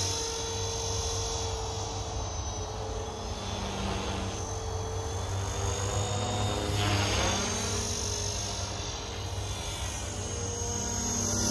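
Radio-controlled model helicopter in flight: a continuous whine from its rotors and motor. The sound shifts in pitch and loudness as it manoeuvres and passes overhead partway through.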